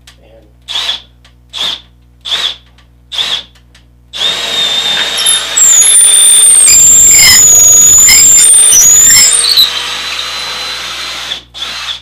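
Makita power drill with a long drill bit: four short blips of the trigger, then a run of about seven seconds that is loudest in the middle, and one more short blip near the end. The bit is boring down through the layout's 3 inches of foam and 1/4 inch of plywood base.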